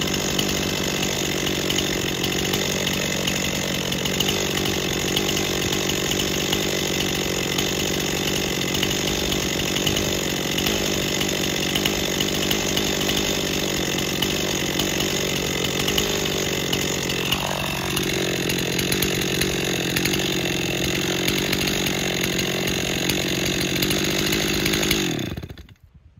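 Stihl MS260 two-stroke chainsaw idling steadily on a 50:1 fuel-oil mix as it warms up. Near the end the engine is shut off, and its note falls away to silence.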